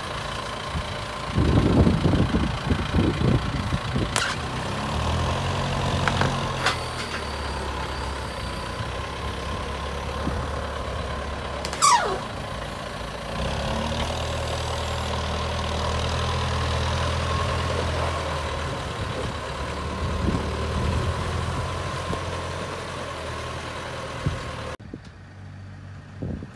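John Deere 6430 tractor's four-cylinder diesel engine, revving in short bursts for the first few seconds and then running steadily, with a couple of sharp clicks and a falling whistle-like sound about twelve seconds in. It drops quieter near the end.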